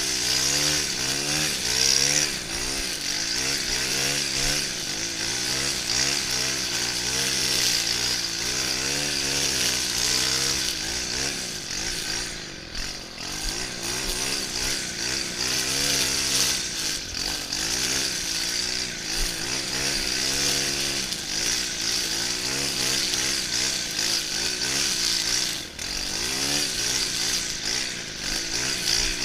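Stihl FS 131 brushcutter's 36cc two-stroke engine running at high revs while trimming grass, its pitch wavering up and down as throttle and cutting load change. It dips briefly about 12 seconds in and again about 26 seconds in.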